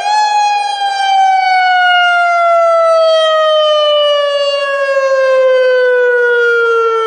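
Federal Signal AHAB tsunami warning siren sounding its wail tone, the alert used in real emergencies. A single loud, buzzy pitch peaks right at the start and then falls slowly and steadily.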